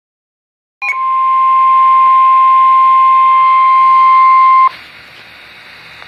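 NOAA Weather Radio's 1050 Hz warning alarm tone: a single steady, loud beep that comes in after a short click just under a second in and holds for nearly four seconds. It cuts off abruptly to faint radio hiss, the signal that an emergency alert message follows.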